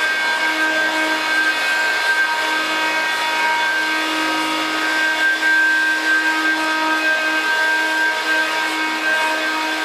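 Hoover Dial-A-Matic 1140 upright vacuum cleaner running steadily, its motor giving an even whine with several steady pitched tones over a rush of air.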